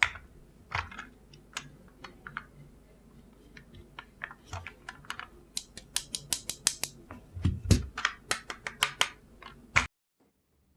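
Sharp, irregular clicks and taps from handling the mouse and its packaging, with a low thump about seven and a half seconds in. The sound cuts off abruptly shortly before the end.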